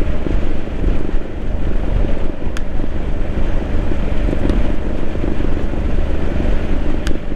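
Triumph Street Scrambler 900's parallel-twin engine running steadily, with wind rumbling on the microphone.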